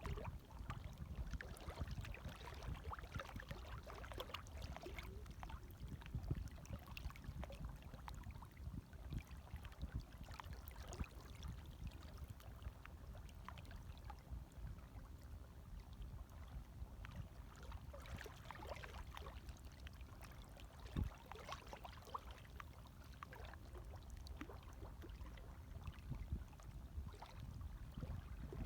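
Gentle waves lapping at the water's edge: a soft continuous wash with many small irregular splashes and gurgles over a low rumble.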